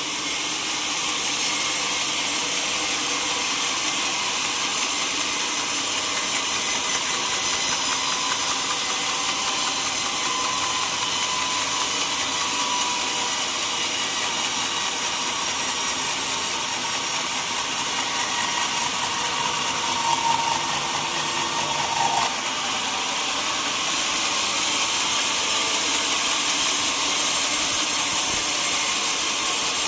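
Sawmill saw cutting a teak log: a steady, hissing machine noise of the blade running through the wood.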